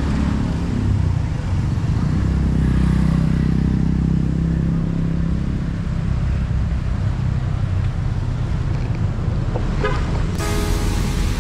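Road traffic noise with a deep, steady rumble, swelling as a motor vehicle passes a few seconds in. Near the end it cuts abruptly to music.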